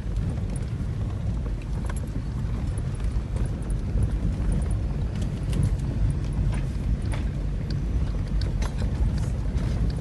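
Car driving over a rocky dirt track: a steady low rumble with scattered knocks and clicks from stones under the tyres.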